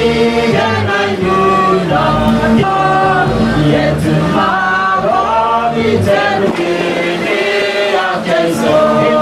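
A congregation singing a hymn together in long, held notes, led by a man's voice through a microphone.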